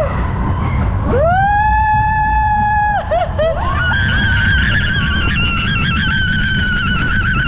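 People screaming on a roller coaster: one long held scream, then a higher, wavering scream from about four seconds in, over the steady low rumble of the coaster running on its track.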